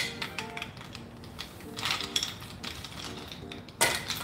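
Ice cubes clinking as they drop into a plastic blender jar: a sharp clink at the start and a few lighter taps. Near the end comes another strong glassy clink as the glass bowl is handled.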